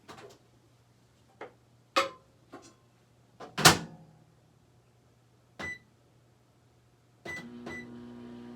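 Microwave oven being shut and started: a few knocks and clicks with one loud clunk about three and a half seconds in, short keypad beeps, then the oven starts running with a steady hum for its 2-minute cook about seven seconds in.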